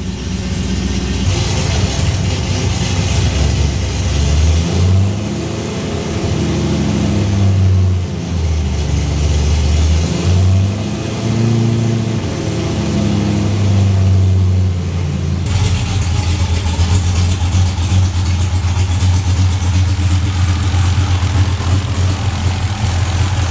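Supercharged LSA V8 running while the 6L80 transmission warms up for its fluid-level check. For the first half its speed rises and falls as it is run through the gears; after that it idles steadily.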